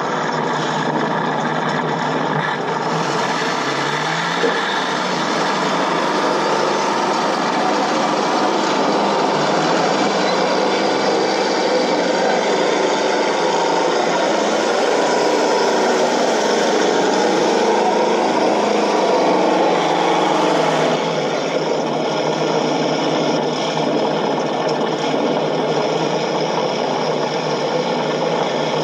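1/16 Heng Long T-90 RC tank's sound unit playing a recorded tank engine running steadily through its small speaker. It turns louder and brighter from about three seconds in until about twenty-one seconds, then settles back.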